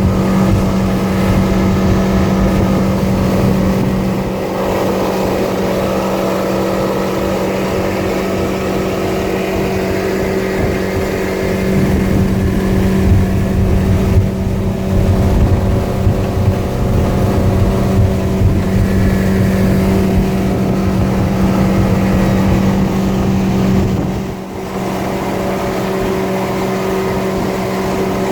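Motorboat engine running steadily under way, a constant drone with the rush of water and wind over it; the engine note eases briefly about twenty-four seconds in.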